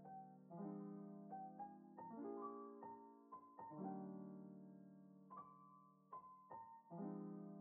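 Quiet background piano music: soft chords with a simple melody, no voice over it.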